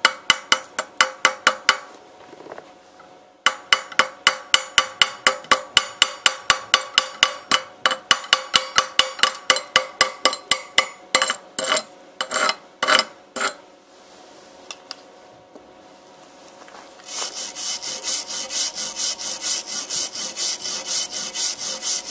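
Steel chipping hammer striking slag off a fresh 7018 basic-electrode weld bead on steel plate, rapid sharp metal taps at about four a second, then a few slower blows; chipping the slag off to inspect the weld. From about three-quarters through, a wire brush scrubs the bead in quick rhythmic scratchy strokes.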